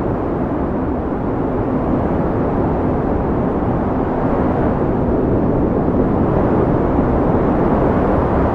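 Steady wind blowing, a low, dull rush with little hiss, growing slightly louder in the second half.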